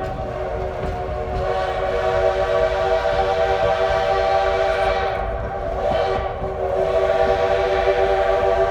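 Steam locomotive's chime whistle blowing a long, sustained chord of several tones, easing briefly about two-thirds of the way through, over the low rumble of the moving train; it is sounding for a railroad grade crossing.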